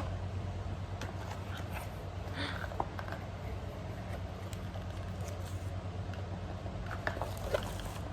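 Light handling noises of light stick packaging: soft rustling and scraping with a few small clicks, over a steady low room hum.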